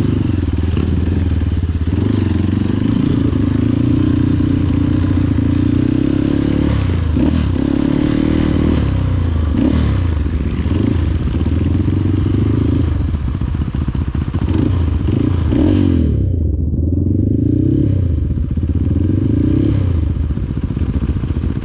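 Trail motorcycle engine being ridden, its pitch rising and falling again and again as the throttle is opened and eased off.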